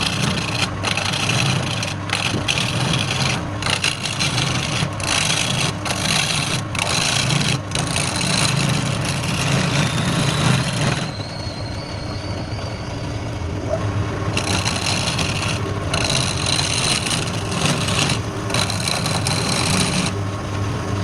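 A wood lathe's motor runs with a steady hum while a turning tool cuts into the spinning wood. The cutting comes as a rough, hissing scrape in two long passes with short breaks, the second starting a few seconds after the first stops.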